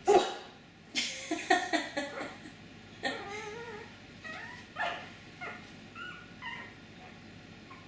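One-week-old Brittany spaniel puppy yelping and squealing: a sharp loud yelp at the start, a quick run of short yelps, then thin wavering whines that rise and fall and fade near the end.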